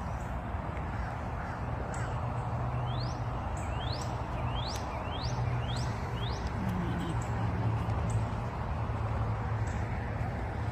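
A bird calling outdoors: a run of short, quickly rising whistles, about two a second, through the middle, over steady background noise.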